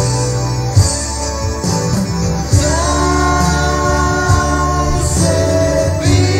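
A song: a singer holds one long note over a steady bass line and a regular beat.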